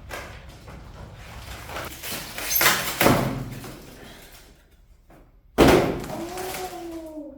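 A washing machine and its packaging being handled during unboxing: scraping and rustling with two loud knocks about two and a half seconds in, then a sudden bang a little past halfway that dies away.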